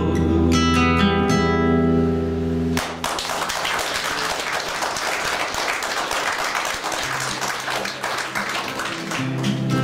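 Acoustic guitar's closing chord rings out at the end of a song. About three seconds in, it gives way to a spell of audience applause. Under the clapping the guitar picks a few low notes leading into the next song.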